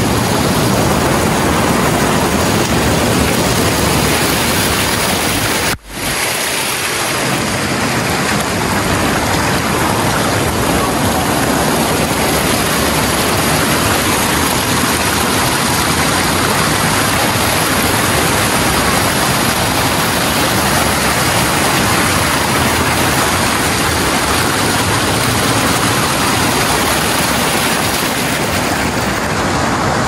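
Steady, loud rushing roar of a waterfall. It cuts out sharply for an instant about six seconds in, then carries on.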